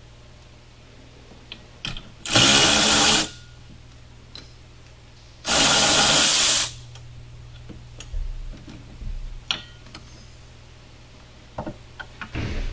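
Cordless electric ratchet running in two bursts of about a second each, a few seconds apart, undoing a nut on the windshield wiper linkage. Light metal clicks and knocks follow.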